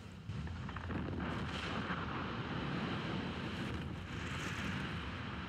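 Open-pit mine blast: a continuous low rumble of breaking rock and debris with a rushing hiss as the dust cloud rolls over, with no single sharp bang, easing off near the end.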